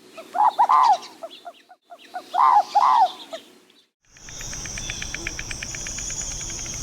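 Two bursts of bird calls, each a short run of rising-and-falling notes, a second apart. After a short gap, a different steady high buzz with rapid even ticking starts about four seconds in.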